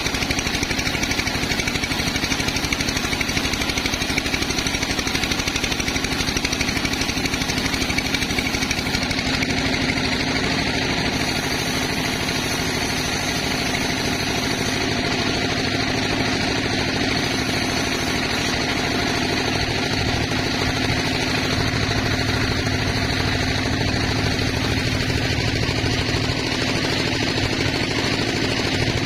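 Sawmill machinery running steadily, with an engine's rapid, even beat throughout.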